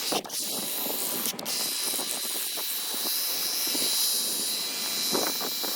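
Ryobi EZ Clean cordless pressure washer spraying on its low-pressure setting: a steady, high-pitched hiss of the water jet, with faint spattering underneath.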